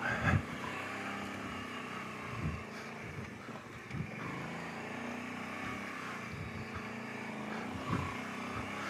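Kawasaki Brute Force 750 ATV's V-twin engine running steadily at low speed, with a few brief knocks as the machine crawls over rocks.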